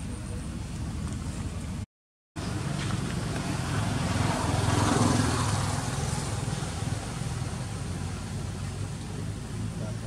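Steady low engine hum of a motor vehicle, swelling to a peak about five seconds in and fading again as it passes. The sound drops out completely for half a second about two seconds in.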